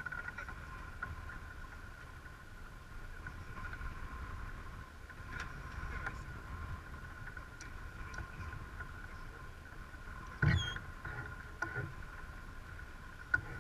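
Sailing yacht under way: water rushing along the hull and wind on the deck, with a steady high-pitched hum. About ten and a half seconds in there is a loud knock with a short falling squeal, and there is a sharp knock near the end.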